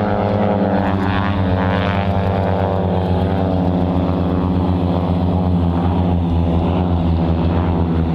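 Propeller-driven aerobatic airplanes' piston engines droning steadily with a pulsing tone.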